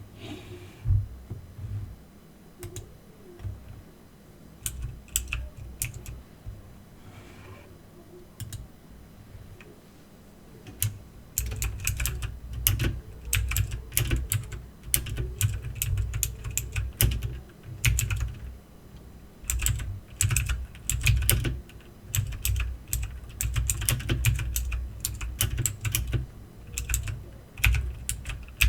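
Aukey mechanical keyboard being typed on, the keys clicking. There are scattered key presses at first, then steady, fast typing from a little over a third of the way in.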